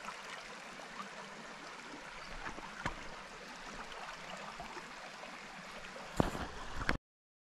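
Creek water running, a steady rushing hiss, with a few small clicks and a knock. About 6 s in comes a louder knock and rustle, and the sound cuts off abruptly just before the end.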